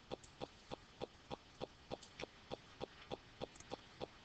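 Faint, steady ticking, about three even ticks a second.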